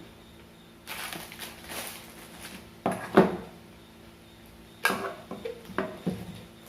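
Hands unpacking box contents: packaging rustling for a second or so, then several sharp knocks and clatters as small hard items are handled and set down.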